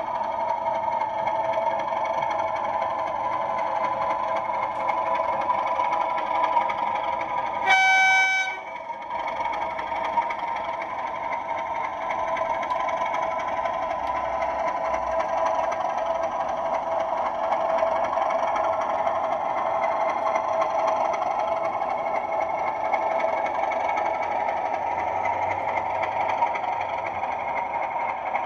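Bachmann model Class 37 diesel locomotive running past with its freight train, making a steady droning hum. About eight seconds in it sounds a single horn blast lasting about a second.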